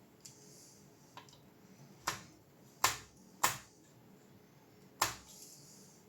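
Small hard parts and tools being handled on a work surface while a graphics card is taken apart: a couple of faint ticks, then four sharp clicks over about three seconds.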